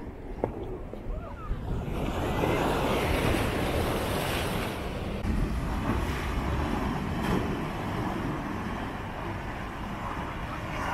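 Sea surf rushing and breaking over boulders and a concrete slipway. It swells up about two seconds in and again around seven seconds, with wind rumbling on the microphone.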